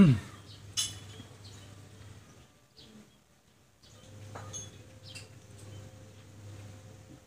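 A sharp knock right at the start, then a few scattered light metallic clinks over a faint low hum.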